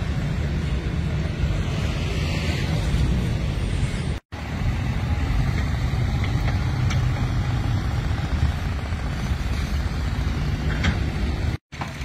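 Steady low rumble of construction-site noise. It cuts out to silence for an instant about four seconds in and again near the end.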